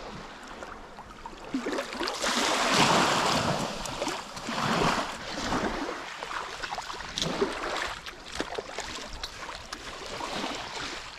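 Small waves washing onto a sandy shore, swelling louder twice in the first few seconds, with wind blowing across the microphone.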